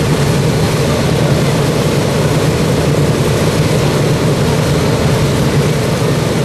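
Boeing B-17G Flying Fortress's Wright R-1820 Cyclone radial engines running steadily on the ground, a loud, even low rumble of several piston engines turning propellers.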